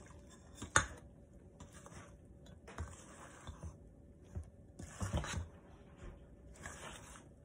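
Metal utensil stirring flour and hot water into dough in a stainless steel mixing bowl: scattered scrapes and soft squishes, with one sharp clink against the bowl just under a second in.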